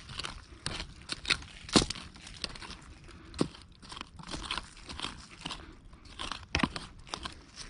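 Short-handled digging adze chopping and scraping into forest soil, roots and leaf litter: a string of irregular crunching strikes, the sharpest about two seconds in.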